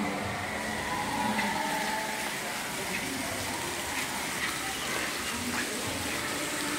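Steady rush of water spraying from the fountain jets of a children's splash-play area.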